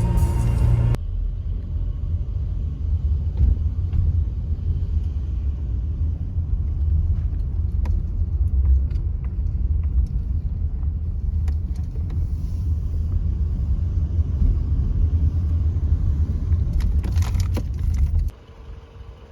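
Steady low rumble of a car on the move, with a few light clicks and a brief rattle near the end before it cuts off suddenly.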